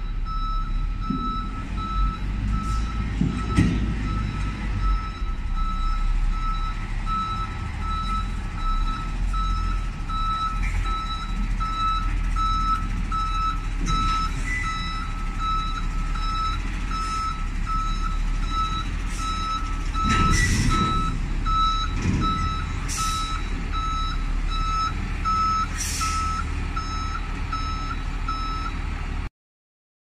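A vehicle's reversing alarm beeping steadily, about two beeps a second, over the low running of a diesel tractor engine, with a few metallic knocks around twenty seconds in. The sound cuts off abruptly near the end.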